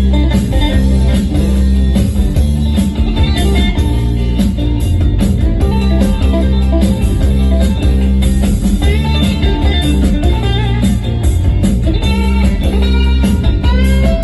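Guitar-led music with electric guitar and a heavy bass line, played back through a 1969 Marantz Sixteen stereo power amplifier in an audio test. Bent guitar notes glide up and down a few times in the second half.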